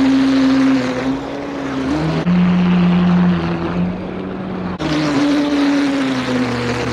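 Blackjack 24 RC boat's electric motor and propeller running with a steady whine, its pitch shifting with throttle and the sound changing abruptly twice.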